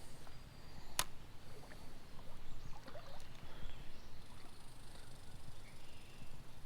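Creek water sloshing and splashing around a wading angler's legs, with one sharp click about a second in.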